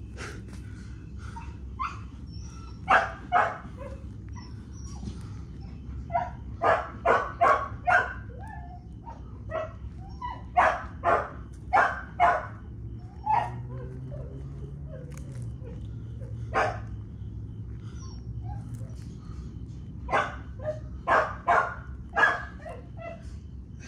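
A dog barking in short clusters of two to four barks, repeated several times with pauses between, over a steady low hum.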